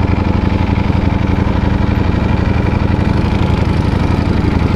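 Ducati Panigale V4 Speciale's V4 engine with an Akrapovic exhaust idling steadily, with a fast even pulse and no revving.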